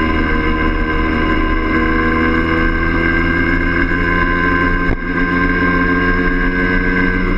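Yamaha DT50M's 50 cc two-stroke single-cylinder engine running steadily at cruising speed under the rider, with a brief dip about five seconds in.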